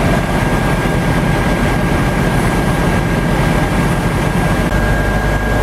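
Heavy diesel engine of a fire engine running steadily, a low drone with a thin, steady high whine over it.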